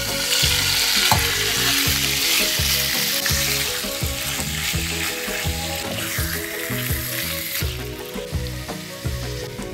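Raw meat pieces sizzling loudly in hot oil in a nonstick frying pan, starting as they go in; the sizzle eases after about seven and a half seconds.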